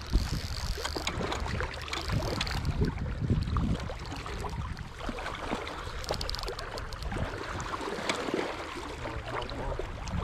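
River water rushing and splashing, mixed with many small splashes, and a low wind rumble on the microphone.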